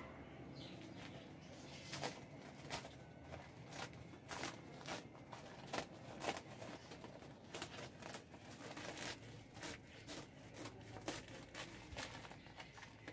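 A plastic sack-like shopping bag lining a planter, crinkling and crackling irregularly as hands handle and fold its edge around the soil. Near the end scissors cut through the bag.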